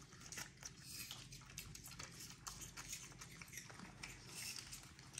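Faint, scattered clicks and chewing sounds of capuchin monkeys eating small pieces of chopped apple.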